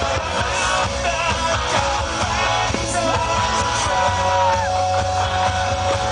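Rock music with a singing voice over guitar and a steady band accompaniment.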